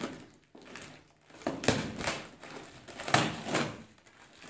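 Packing tape being cut and pulled off a cardboard box, a handful of short, irregular rasping rips and scrapes on the cardboard.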